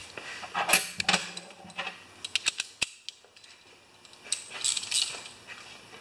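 Small metal parts and hand tools being handled, making light metallic clinks and rattles, with a quick run of sharp clicks a little over two seconds in and a rustle near the end.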